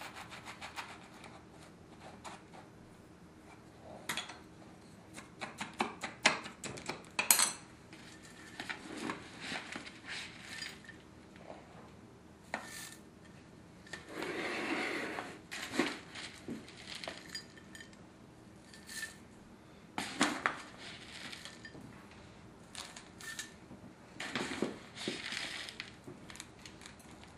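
Granular bonsai soil, a mix of Fujiyama soil and akadama, being scooped into a plastic bonsai pot and worked in around the roots by hand: scattered clicks and rustles of hard grains, with a longer rustling stretch about halfway through.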